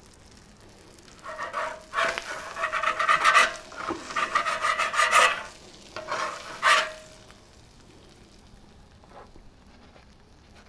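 Metal spatula scraping across the steel top of a Blackstone flat-top griddle as it is worked under a burger to lift it, in a run of strokes from about one second in to about five seconds, with one more short scrape a second or so later.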